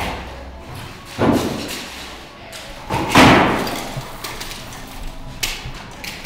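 Two loud thumps about two seconds apart, each fading away over about a second, with lighter knocks and taps around them.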